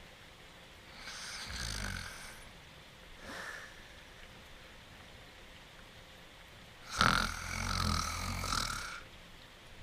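A cartoon dog character snoring: a long snore about a second in, a short breath around three and a half seconds, and a louder, longer snore starting at about seven seconds. A steady hiss of rain runs underneath.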